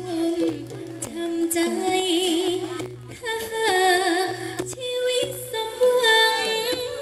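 A female voice singing held notes with vibrato into a microphone over amplified backing music with a repeating bass pulse.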